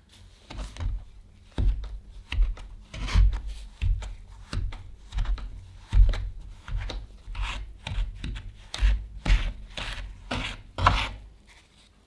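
Plastic bowl scraper chopping and scraping cold butter cubes into flour against a wooden bowl: about two scraping strokes a second, each with a dull knock on the wood.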